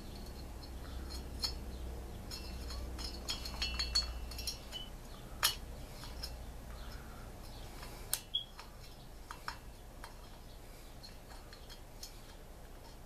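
Scattered light metallic clicks and clinks from a Stihl MS 290 chainsaw's cylinder and piston being handled and fitted together during reassembly. Two sharper clicks come about five and eight seconds in.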